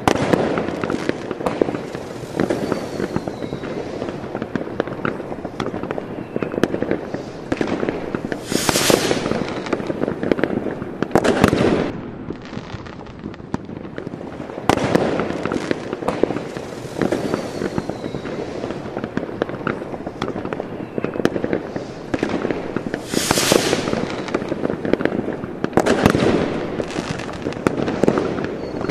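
Fireworks crackling and popping continuously. Twice there is a rising whoosh, and a couple of seconds after each comes a loud bang; the same stretch repeats halfway through, as in a looped sound effect.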